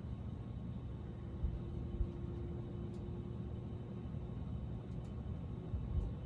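Casablanca Venus Halo ceiling fan running at speed 6: a steady motor hum with a faint hiss, which the owner takes for the motor, possibly an electrical problem, as it stops when the fan is off. A few soft low knocks come through as it runs.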